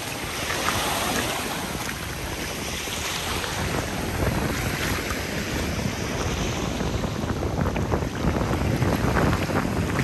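Sea waves washing onto the beach, with wind buffeting the microphone.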